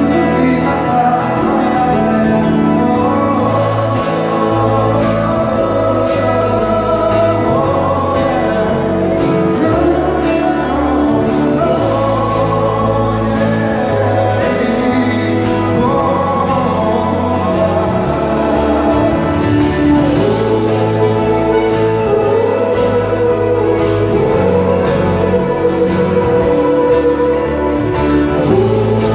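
Live band playing a pop song with singing over it, at a steady level throughout.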